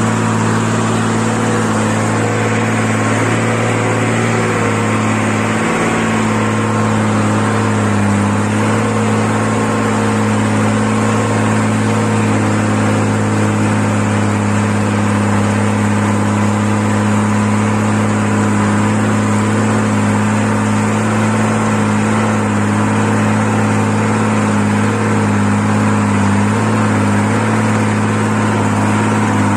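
Diesel engine of a loaded Mercedes-Benz 1620 truck pulling steadily uphill at a constant pitch, its exhaust rumbling.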